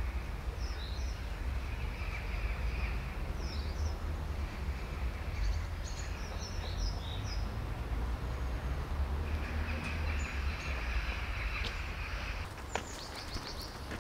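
Outdoor background: a steady low rumble, with small birds giving short, high chirps several times. Near the end the rumble eases and a few sharp clicks sound.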